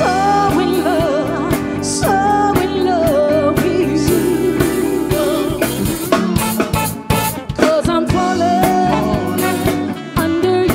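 Live soul band playing, with drums keeping time, while a female lead vocalist sings long, wavering notes over the chords.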